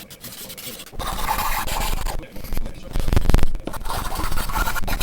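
Hand file rasping in strokes along the edges of a keyboard's printed circuit board, smoothing the corners where the board halves were broken apart, with a louder knock just after the middle.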